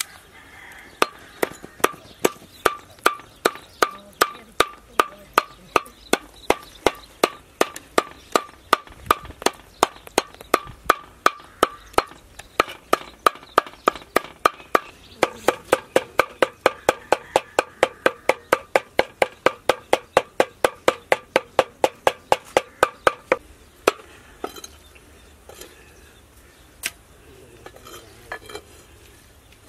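Heavy knife mincing raw chicken on a wooden tree-stump chopping block, with steady rapid strokes about three a second, each with a short metallic ring from the blade. The chopping stops a few seconds before the end, leaving a few scattered knocks.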